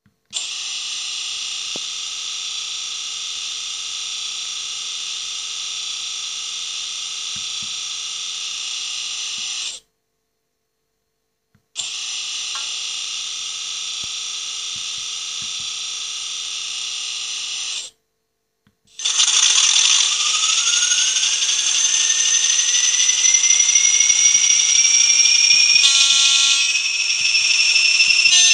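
Hornby TTS sound decoder in an N gauge Graham Farish Class 40 model, playing English Electric Class 40 diesel sounds through its small speaker. A steady idle runs for about nine seconds and then for about six more, each cut off by a short silence. About 19 seconds in the engine powers up, its turbocharger whistle rising while a second high tone falls.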